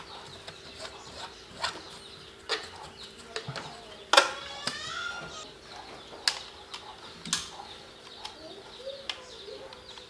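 Scattered sharp clicks and knocks of plug-in circuit breakers being handled at a breaker panel, the loudest about four seconds in. Right after it comes a short bird call, over a faint steady hum.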